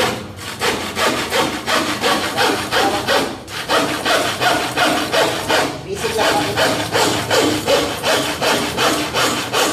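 Handsaw cutting through a wooden board in steady back-and-forth strokes, about two a second, with two brief pauses.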